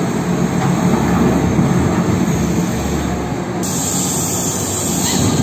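Cat 6030 hydraulic mining excavator running under load while digging and dumping rock: a loud, steady, deep engine drone with a low hum. The higher hiss changes abruptly about three and a half seconds in.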